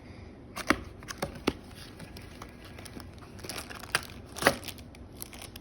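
Toy packaging being opened by hand: crinkling and tearing, with scattered sharp snaps, the loudest one near the end.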